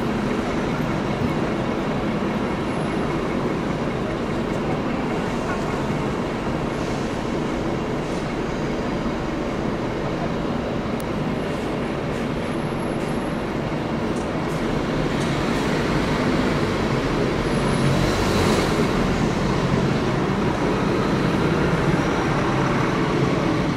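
English Electric 8-cylinder diesel engine of an orange CP 1400-class locomotive idling steadily while it stands, growing a little louder in the second half.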